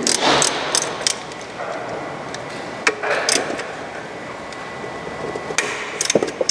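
Scattered metallic clicks and knocks of an 8 mm Allen key being worked on the bolts that fix the heat exchanger to the automatic gearbox.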